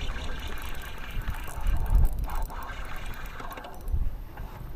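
Spinning reel being cranked against a hooked fish, with rumbling wind and handling noise on the microphone and heavier bumps about two and four seconds in.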